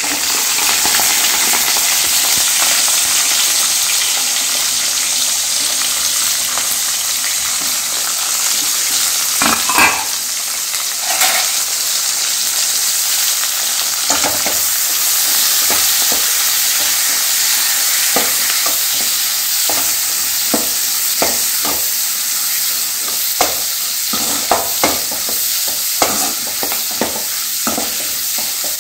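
Sliced onions sizzling in hot oil in a metal kadai, a steady frying hiss. A short clank comes about ten seconds in, and in the second half a steel ladle clicks and scrapes against the pan as the onions are stirred.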